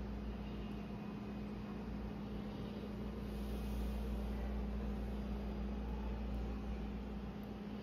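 A machine's steady low hum: one constant droning tone over a low rumble, unchanging throughout.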